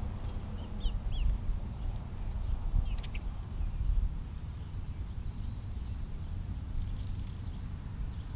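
Small birds chirping over a steady low rumble: a couple of short rising chirps about a second in, a few more around three seconds, then a quick run of short high chirps near the end.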